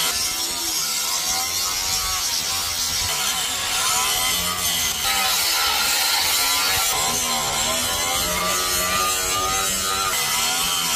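Electric angle grinder grinding a steel knife blade, its whine rising and falling over and over as the disc is pressed into the metal.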